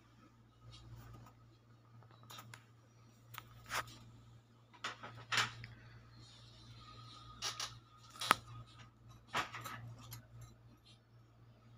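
Gold bangles handled, giving about half a dozen sharp light clicks and taps as they knock against each other and the tabletop. A steady low hum runs underneath.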